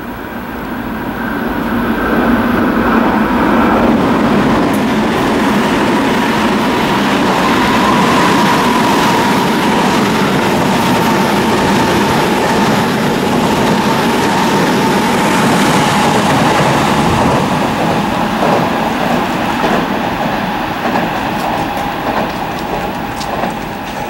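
Tobu 9050 series electric commuter train running past at close range: the wheels rumble steadily on the rails, growing loud over the first couple of seconds, with a whine that slowly falls in pitch as the cars go by.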